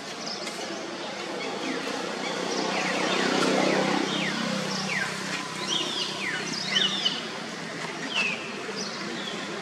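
Many short, high, falling animal chirps in a row, from about two seconds in until near the end, over steady outdoor background noise.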